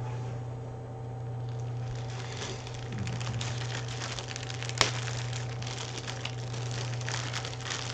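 Packaging being handled and opened by hand, crinkling and rustling with many small clicks, and one sharp click about five seconds in. A steady low hum runs underneath.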